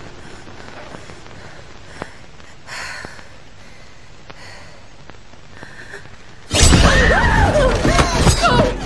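A woman's faint, tense breathing and a soft gasp over a low background hum. About six and a half seconds in, this gives way abruptly to a loud horror-film sting of shrill, wavering tones.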